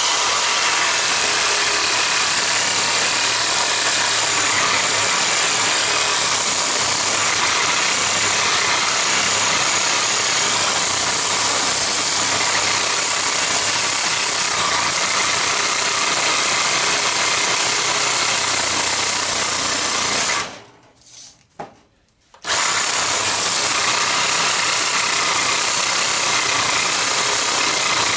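Cordless reciprocating saw running and cutting through a battery charger's copper-wound core. It stops for about two seconds about 20 seconds in, then starts cutting again.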